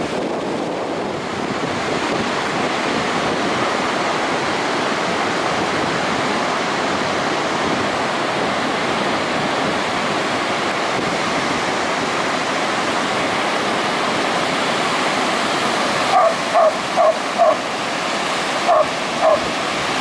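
Ocean surf breaking steadily, with a Vizsla barking near the end in two quick runs of short, high barks, about four and then three.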